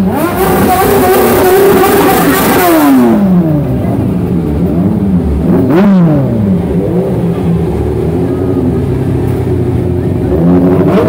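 Motorcycle engine revved hard, held high and then dropping away, with another sharp rev about six seconds in, over crowd voices.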